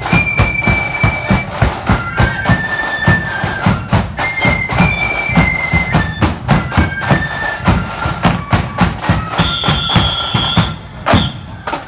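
Marching fife and drum band playing a tune: shrill fifes over a steady drum beat. Near the end the tune closes on a long high fife note, followed by a last drum stroke.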